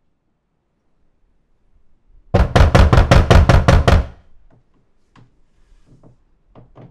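Loud, rapid knocking on a door, about ten blows in quick succession lasting under two seconds, then a few faint taps.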